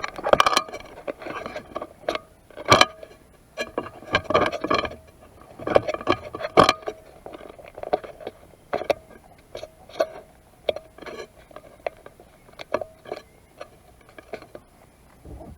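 Irregular knocks and clatter of a kayak paddle against the plastic hull, with water patter from the paddle strokes. Loudest in the first several seconds, then lighter and sparser.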